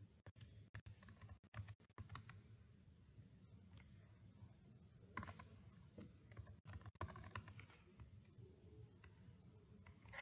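Faint computer keyboard typing: scattered key clicks in short runs near the start and again around the middle, over a low steady hum.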